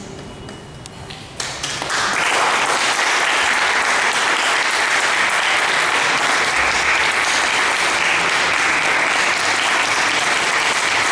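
Audience applauding, breaking out suddenly about a second and a half in and then continuing steadily.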